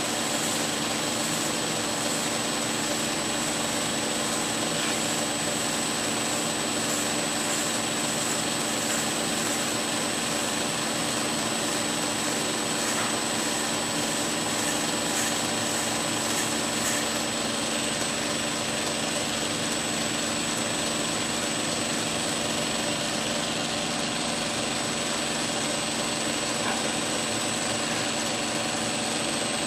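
Belt grinder running steadily, a constant hum with a high whine, as a straight razor blade is held edge-down against its abrasive belt for the finish grind, steel taken off until a thin foil burr forms along the edge.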